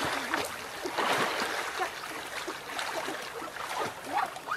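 River water splashing and churning as people swim and wade quickly through it, with the biggest splashes at the start and about a second in.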